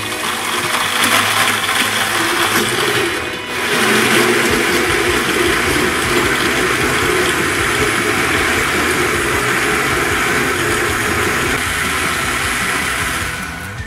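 Countertop electric blender running at speed, blending cooled custard milk with ice cubes. It dips briefly about three seconds in, then runs steadily and stops near the end.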